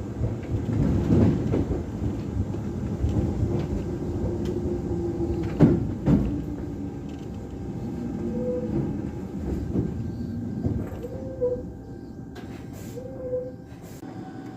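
Inside a Toyohashi Railway Atsumi Line train pulling into a station: the running rumble eases as it slows, with two sharp clunks about six seconds in and a few short squeals in the second half.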